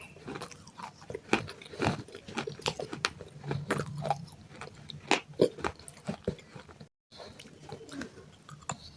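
Close-up biting and chewing of broken baked-clay pot pieces: irregular sharp crunches, several a second. The sound cuts out briefly about seven seconds in.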